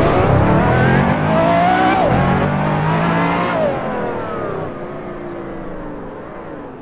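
Racing-simulator engine sound of the Lamborghini V12 Vision Gran Turismo's naturally aspirated V12 under hard acceleration. The pitch climbs, drops at an upshift about two seconds in, and climbs again. From about three and a half seconds the pitch falls and the sound fades as the car pulls away.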